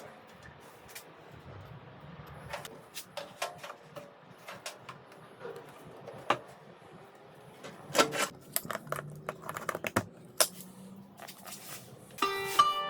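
Scattered sharp clicks and light knocks of small hard objects being handled, irregular and sometimes in quick clusters. Plucked-string music starts near the end.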